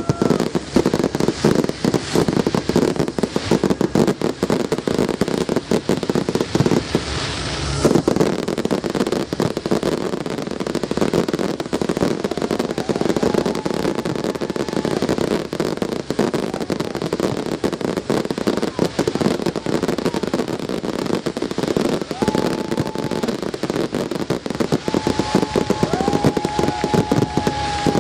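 Aerial fireworks display: a dense, continuous barrage of shell bursts and rapid crackling, many reports each second.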